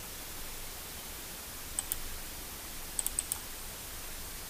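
Computer mouse clicking: a double click, then about a second later four quick clicks, over a steady background hiss.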